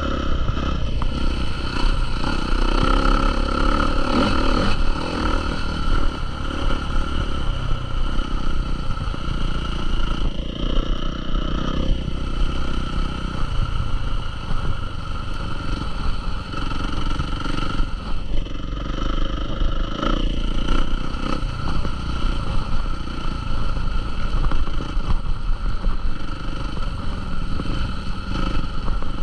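Motocross motorcycle engine running, loud and steady, with a few brief dips in pitch.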